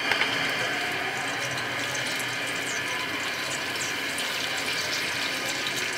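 Gas stove burner hissing steadily under a pot of oil as it heats; an even rushing hiss that starts suddenly and holds at one level.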